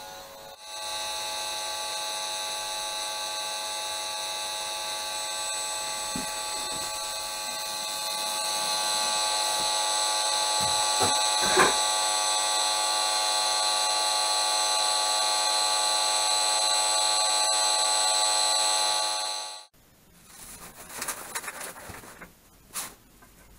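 Buzzing audio output of an Esmog Spion EMF meter picking up the electric field of a computer monitor: a steady multi-pitched buzz that starts just under a second in, grows louder about eight seconds in and cuts off sharply near the end. After it comes rustling and handling noise as the shielding mesh is moved over the screen.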